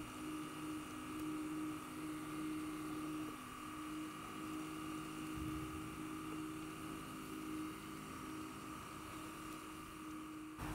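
Model chairlift's haul rope running over a tower's train of small 3D-printed plastic sheave rollers, making a steady whirring hum that holds the same pitch throughout.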